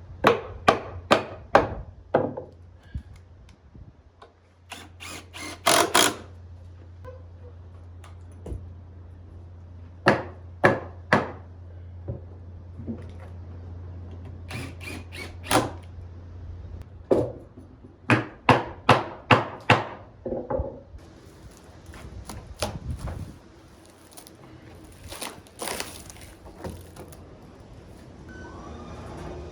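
Repeated sharp knocks and thunks on wood, coming in quick runs of several strikes at a time, over a steady low hum that stops about two-thirds of the way through.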